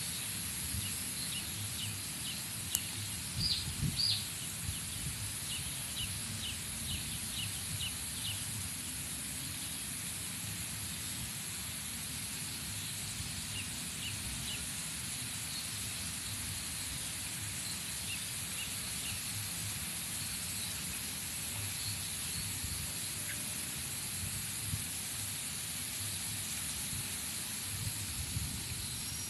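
Outdoor ambience: a steady high hiss, with short runs of quick, high chirps from small birds, clustered in the first eight seconds and coming back briefly twice later.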